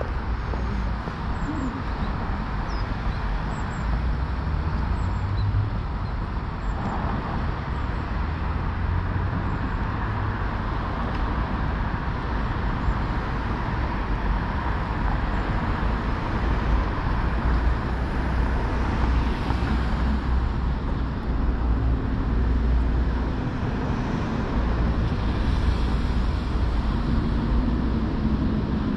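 Steady city road traffic: a continuous rumble of passing cars and engines with a low hum underneath.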